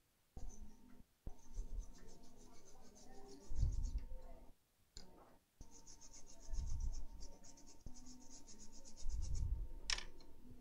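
Rapid scrubbing strokes on an iPhone 6 logic board, cleaning off liquid-damage corrosion. There are two spells of scrubbing with a short break between them.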